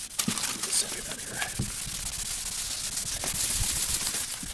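400-grit wet sandpaper rubbed by hand back and forth over a fiberglass canoe's gelcoat: a continuous scratchy hiss, somewhat louder in the second half. This is wet sanding to polish the repaired surface before buffing.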